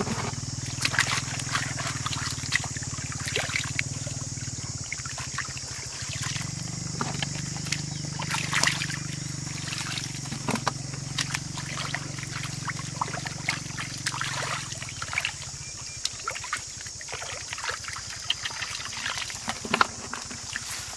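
Muddy water splashing and dribbling as a plastic basket is scooped through a shallow pool and lifted out, with irregular splashes and drips throughout. A steady high-pitched background hum runs underneath.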